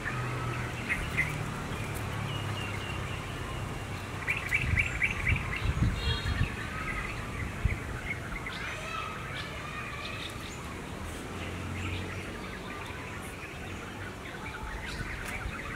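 Small birds chirping in the background, with a quick trill of rapid repeated notes about four to five seconds in, over a low steady hum.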